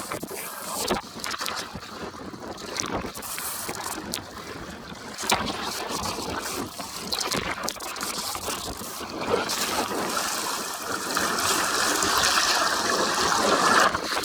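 Water rushing and splashing down a water-park tube slide, with wind buffeting the microphone and scattered knocks. The rush grows louder over the last few seconds.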